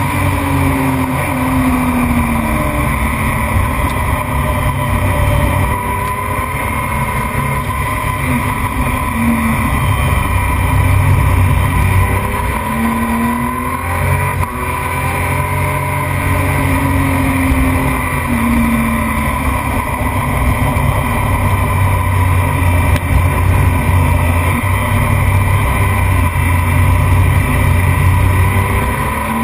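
Onboard sound of a racing motorcycle lapping a circuit at speed: the engine revs up through the gears, its pitch climbing and dropping back at each shift every few seconds, over steady wind rush.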